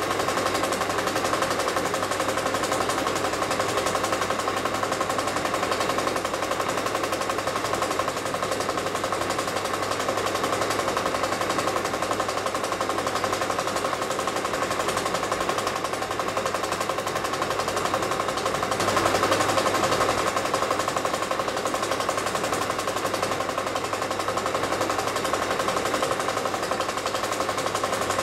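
Film projector running, a steady fast mechanical clatter with a constant hum, briefly a little louder about two-thirds of the way through.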